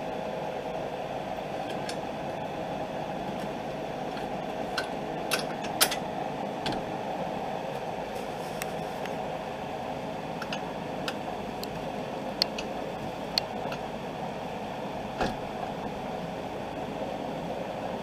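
A steady machine hum with about ten short, light metal clicks scattered through it, as bolts and parts are handled at a car's front wheel hub and steering knuckle.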